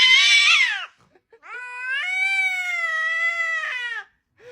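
A cat yowling: one long drawn-out call that ends about a second in, then, after a short pause, a second, longer and steadier yowl lasting about two and a half seconds.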